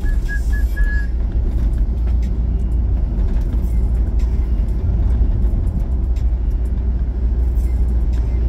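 Steady low rumble of a car driving, heard from inside the cabin: engine and road noise. A few short high beeps sound in the first second.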